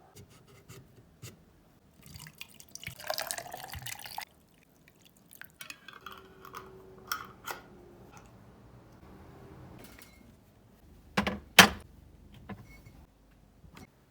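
Liquid poured into a vessel for about two seconds, its pitch rising as it fills, followed by small clicks and clinks of kitchenware and two sharp knocks of something hard set down near the end.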